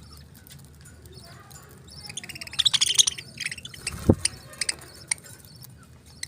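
Budgerigars chirping: faint scattered chirps, then a quick burst of rapid chirps about halfway through. A low thump comes about four seconds in, followed by a few sharp clicks.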